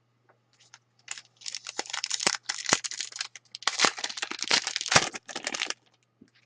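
A hockey card pack wrapper being torn open and crinkled, a dense crackling with sharp snaps in two main spells, stopping a little before the end.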